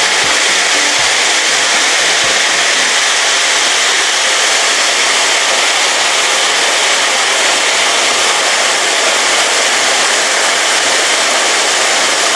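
Chicken pieces deep-frying in a pan of very hot vegetable oil: a loud, steady sizzle. The oil is at a hard boil, hot enough that the chicken will not soak up oil.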